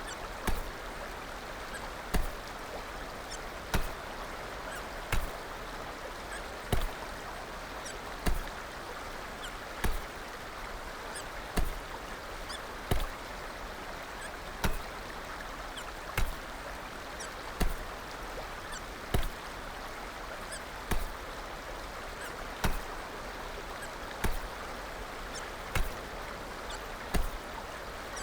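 Repeated hiccups, short sharp catches coming at an even pace of roughly one every one and a half seconds, about eighteen in all, over a steady background hiss.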